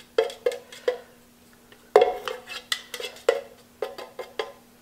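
Stirrer tapping and scraping against the inside of a nearly empty metal can of Varathane finish: a run of irregular clinks that comes thicker and faster about two seconds in.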